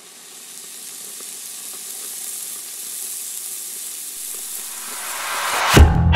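Sizzling of searing meat: a steady crackling hiss that grows louder throughout, cut off about a second before the end by a loud hit as electric guitar music comes in.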